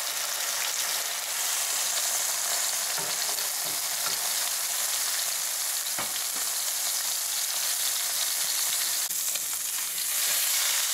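Pork loin searing in hot oil in a frying pan over high heat: a steady sizzle, with a few sharp clicks as it is turned with wooden spatulas.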